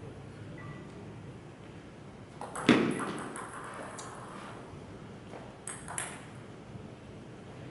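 Table tennis ball ticking as it bounces, with a few light clicks in the second half. One loud thump comes about a third of the way in.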